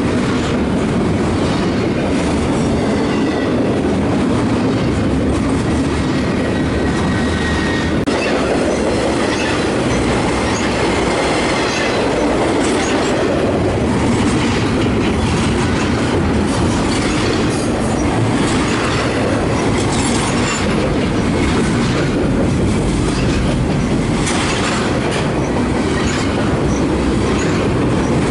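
Double-stack intermodal well cars of a BNSF freight train rolling past close by: a steady loud rumble of steel wheels on rail, with clacking over the rail joints. A faint thin wheel squeal runs through the first half.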